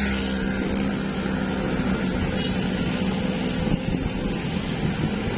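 Wind rushing over the microphone while riding a bicycle along a road. For the first couple of seconds a motor vehicle's engine hums along with it.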